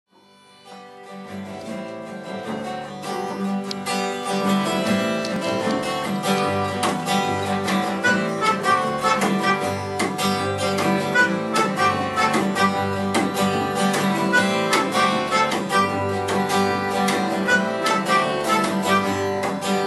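Instrumental introduction of a folk song played live: acoustic guitar, double bass and a keyboard melodica, with no singing yet. The music fades in over the first few seconds, then carries on at a steady level.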